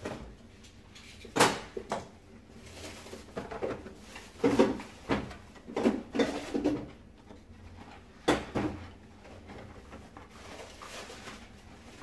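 Knocks and clatter of hands handling parts and tools on a workbench: a plastic vacuum-cleaner filter frame set down and a hot glue gun picked up. There are sharp knocks about a second and a half in and again about eight seconds in, with a run of short bumps between.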